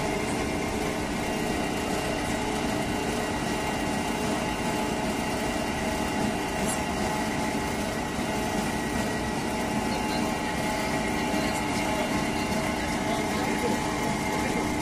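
An engine running steadily at a constant speed, with a hum that holds the same pitch throughout.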